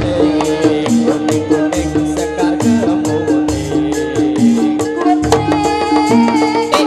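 Javanese gamelan music accompanying a jathilan dance: a steady, repeating pattern of pitched metal notes over regular drum beats.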